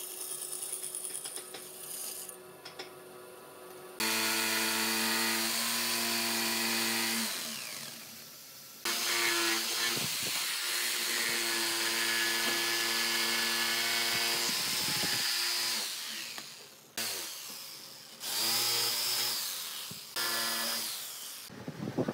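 An electric power tool's motor running at a steady pitch in several separate runs, each starting and stopping abruptly. The first few seconds hold only quieter work noise.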